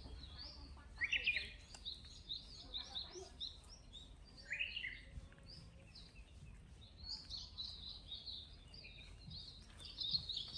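Small birds chirping: many quick, high notes throughout, with louder chirps about a second in and near five seconds, and a busier run near the end.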